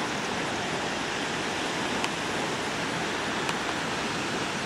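Steady rushing of water released from outlets in a dam spillway, pouring down the concrete face and churning into the river below.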